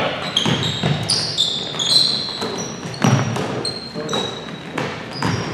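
Basketball game play in a gym: many short, high squeaks of sneakers on the court floor, with a basketball thudding on the floor a few times.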